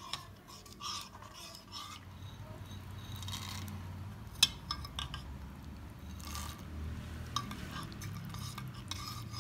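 Green chutney water stirred by hand in a plastic bowl while salty boondi is poured in and mixed through. Soft wet stirring comes with scattered light clicks and taps against the bowl; the sharpest click is about four seconds in.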